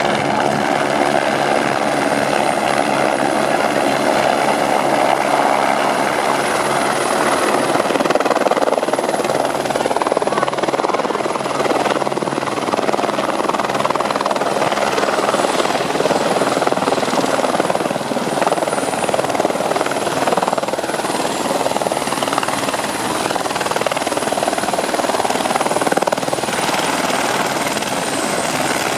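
Helicopter flying in and landing on snow: steady, loud rotor and engine noise with a high whine that dips slightly near the end.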